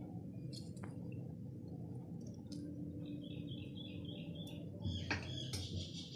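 Faint bird chirping in the background: a quick run of short, evenly repeated high chirps, then a busier twittering near the end. A single sharp clink sounds about five seconds in, over a low steady hum.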